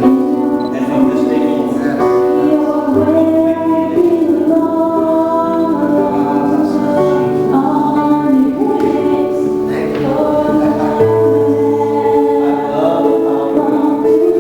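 Gospel worship music: a choir sings sustained chords over held bass notes that change every few seconds.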